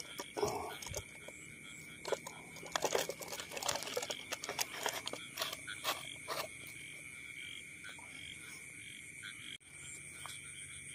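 Night chorus of frogs calling, with a steady high trill throughout. Over the first six seconds or so there is a run of close clicks and rustles, then the chorus alone.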